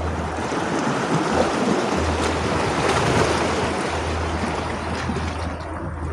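Sea waves: a wave washes in with a rushing surge that builds to its loudest about halfway through and eases off near the end, over a steady low rumble.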